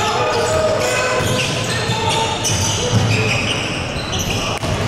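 Basketball game play on an indoor court: the ball bouncing, with short high squeaks over a steady din of indistinct voices.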